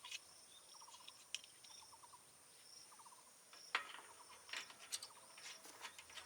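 Faint night insect chorus: a steady high buzz with short trains of quick chirps repeating every second or so, and a few soft clicks.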